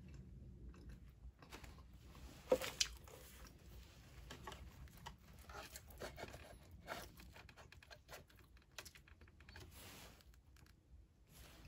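Quiet scattered clicks and scrapes of a plastic fork digging into an open metal can of shredded beef in BBQ sauce, with a couple of sharper knocks about two and a half seconds in.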